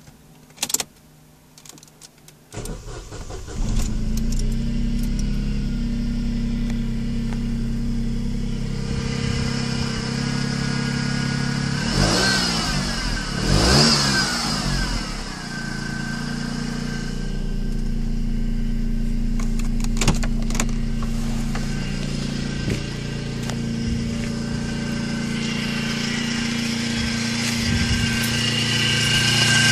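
Opel Corsa B's X10XE 1.0-litre 12-valve three-cylinder engine starting about two and a half seconds in, then idling, revved up and down twice near the middle, and idling again while a high whine grows stronger near the end. It carries an unexplained bearing noise, which the owner suspects is the water pump or the alternator.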